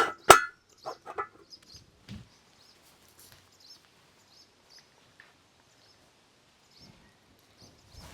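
Two sharp metallic clangs that ring briefly, then a few lighter knocks, while a bird chirps faintly and repeatedly.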